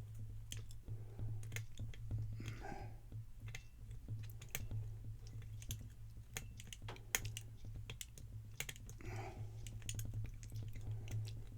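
Irregular small clicks and taps of a lock pick working the pins of a Guard Security 365 padlock, under a steady low hum.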